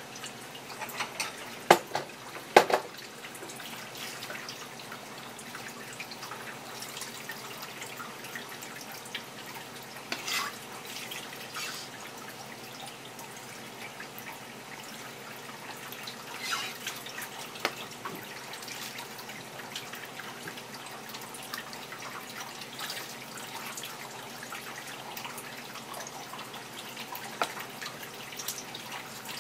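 Water dripping and running in a kitchen sink during fish preparation, with scattered light clicks and knocks of knife work on a cutting board. Two sharp knocks about two seconds in are the loudest sounds.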